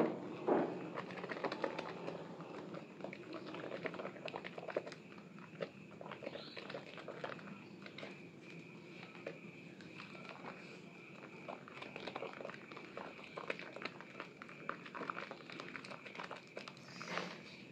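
Wet squelching and crackling of soaked Asepso orange bar soap being squeezed and kneaded by hands in thick lather, made of many small crackles, with louder squelches at the start and near the end.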